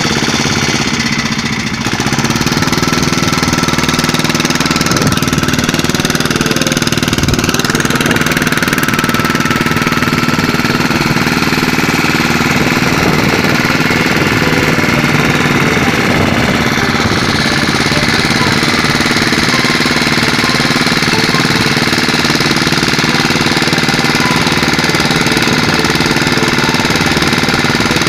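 Long-tail outboard motor of a small river boat running steadily under way, loud and unchanging in pitch.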